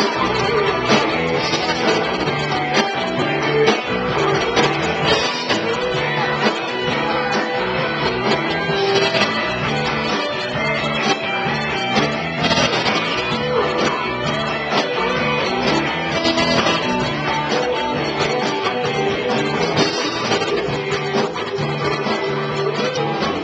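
Live rock and roll band playing through a PA, with electric guitars and drums, loud and continuous.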